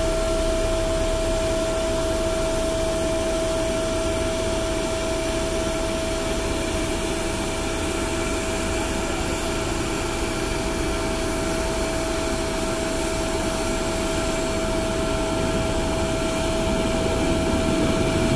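Aircraft gas turbine running steadily: a constant high whine over a loud rushing hiss. A low rumble builds a little near the end.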